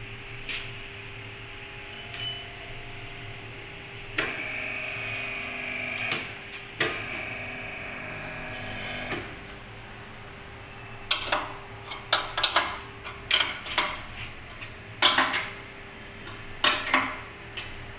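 Hydraulic power unit of a butt fusion pipe-joining machine running in two spells of about two seconds each, a steady whine. Then a string of sharp metallic clanks and knocks from tools and the machine's steel pipe clamps being handled.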